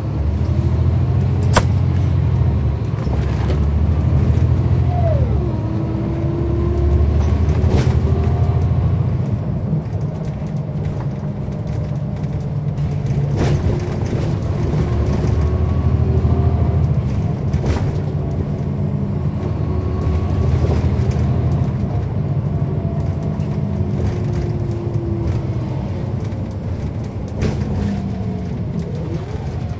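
Caterpillar C13 ACERT diesel of a 2009 NABI 40-SFW transit bus, with its ZF Ecomat 6-speed automatic, heard from on board as the bus pulls away and cruises: a deep, strong engine note that swells and eases several times. Its pitch climbs and drops back repeatedly as the transmission shifts, with occasional sharp knocks and rattles from the bus body.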